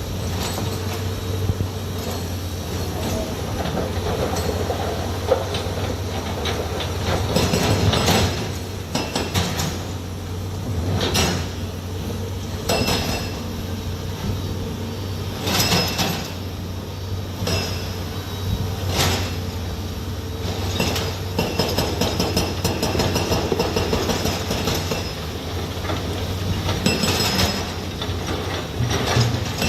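Heavy machinery running with a steady low drone, punctuated every second or two by sharp metallic clanks and squeals.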